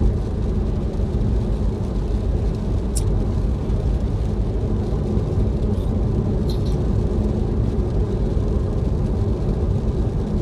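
Road and engine noise of a moving vehicle: a steady low rumble, with two faint brief ticks about three and six seconds in.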